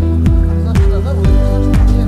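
Background music with a steady beat, a deep drum hit about twice a second under held tones and a melody.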